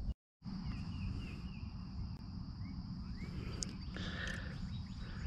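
Outdoor ambience: insects droning steadily on one high note, with short bird chirps over a low rumble of wind on the microphone. The sound cuts out completely for a moment just after the start.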